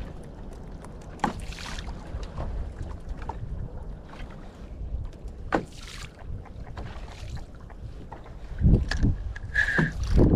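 Wind buffeting the microphone on a small boat on open sea, a steady low rumble with scattered light clicks. Near the end come a few louder knocks and a brief high squeak as the rod and gear are handled.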